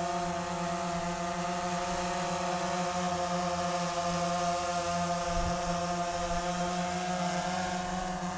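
DJI Phantom 3 Professional quadcopter hovering and drifting slowly a few feet above the ground, its four propellers giving a steady, pitched buzzing hum.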